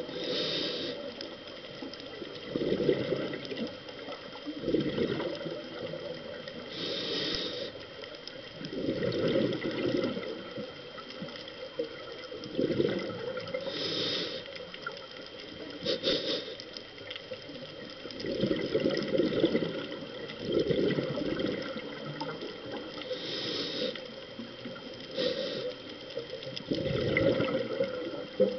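A scuba diver's breathing through a regulator, heard underwater through the camera housing: short hisses on the inhales and longer bubbling rumbles on the exhales, repeating every few seconds.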